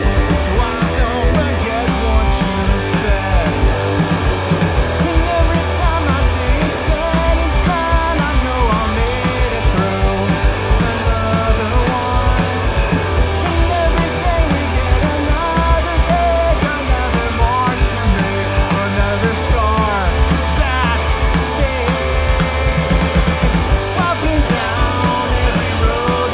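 Punk rock band playing live: two electric guitars, a bass guitar and a drum kit driving a fast, loud song, with a man singing.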